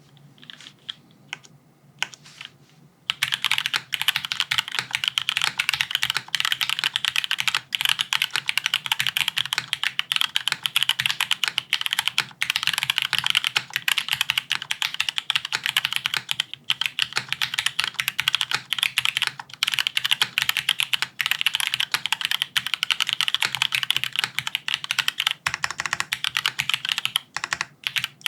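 Haven65 XT mechanical keyboard being typed on: aluminium plate, gasket mount, no foam, PBTfans keycaps. A few separate keystrokes come first, then fast continuous typing from about three seconds in.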